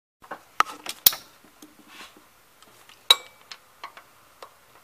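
Steel hand tools, a wrench and socket, clinking and knocking against metal on a bolt at the car's A/C compressor: a handful of irregular sharp clicks, the loudest about a second in and just after three seconds, the second ringing briefly.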